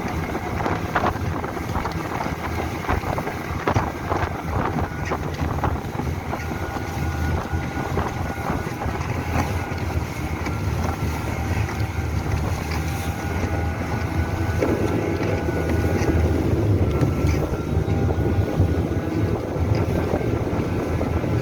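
Small boat's outboard motor running steadily under way, with wind buffeting the microphone.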